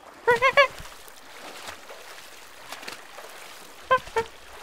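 Short, squeaky wordless vocal sounds from a cartoon character: three quick wavering calls about a third of a second in, then two more near the end, with faint watery background noise between.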